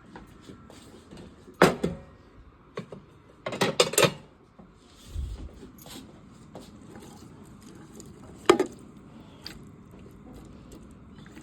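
Kitchen clatter: dishes or utensils knocked against each other. There is a sharp clack about a second and a half in, a quick run of knocks around four seconds, a dull low thump just after, and one more clack near eight and a half seconds.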